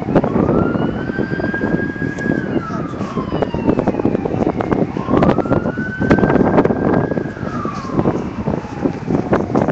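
An emergency vehicle's wail siren, rising and falling slowly in pitch, one full sweep about every five seconds, over loud, steady background noise with scattered knocks.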